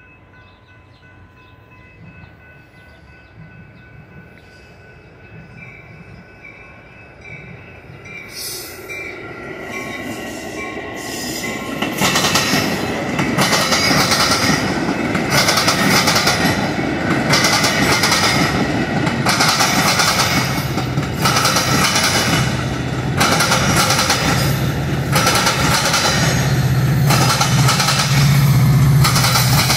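Grade-crossing warning bells ringing steadily while a Metra commuter train approaches, the rail noise swelling. From about twelve seconds in, the stainless-steel bilevel coaches pass close by, loud, with regular wheel clacks over the rail joints. Near the end a low engine drone builds as the diesel locomotive pushing at the rear draws near.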